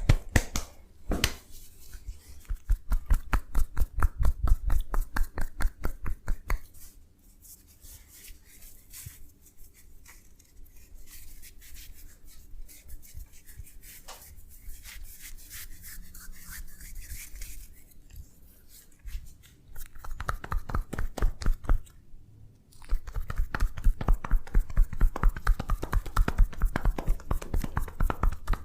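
Hands rapidly tapping and patting on a body during a massage, about five strokes a second, with a quieter stretch of rubbing in the middle.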